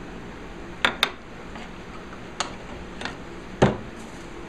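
Wooden jig and dowel being handled and knocked against the cast-iron table of a drill press: a handful of sharp knocks, two close together about a second in and the loudest near the end, over a steady low hum.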